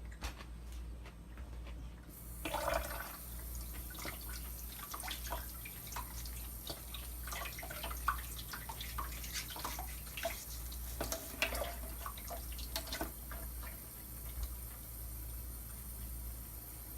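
Water trickling and dripping, with many small irregular drips and splashes over a steady low hum; the dripping thins out about thirteen seconds in.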